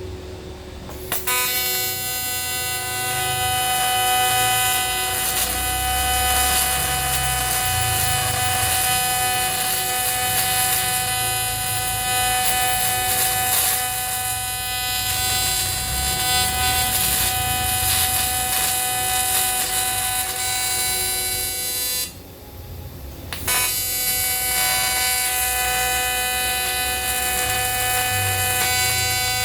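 Aluminium TIG welding arc buzzing steadily on a motorcycle engine case, building up metal around the cracked oil drain bolt hole. The arc strikes about a second in, breaks off briefly about three quarters of the way through, and strikes again.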